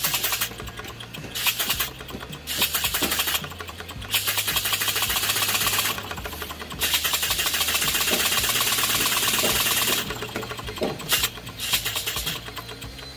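Homemade three-cylinder steam engine with Walschaerts-type valve gear, run on compressed air from a hand-held hose, with rapid hissing exhaust puffs in a fast ticking rhythm. It speeds up in spurts as the air is fed, with the longest steady run in the middle, over a steady low hum.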